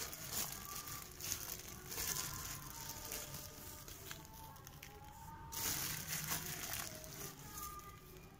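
Faint crinkling of a clear plastic bag of vermicompost being handled. Near the end the vermicompost pours out of the bag onto a heap of potting soil on a plastic sheet.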